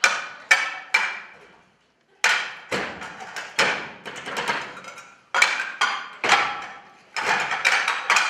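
Table percussion: desktops struck in rhythm with hands and kitchenware, each sharp hit ringing briefly. The phrases break off for a moment about two seconds in, then pick up again, with quicker hits near the end.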